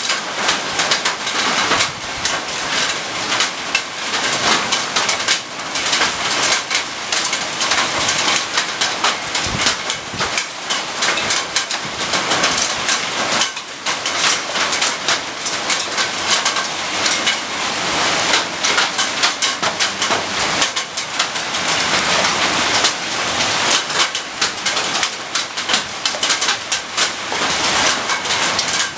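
Hail falling: a dense, steady patter of countless small stones striking the ground.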